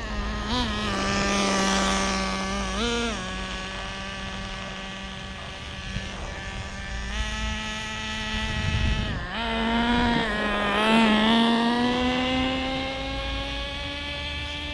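Traxxas Nitro Rustler's small 2.5 nitro engine running with a high buzzing note, blipped briefly about half a second and three seconds in, dipping near nine seconds and then rising slowly in pitch as it speeds up. This is a fresh break-in run at light throttle.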